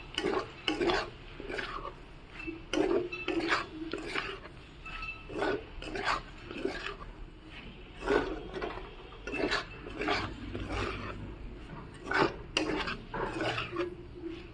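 Flat metal spatula scraping and stirring sliced onions around a metal kadai, an irregular run of scrapes about one or two a second.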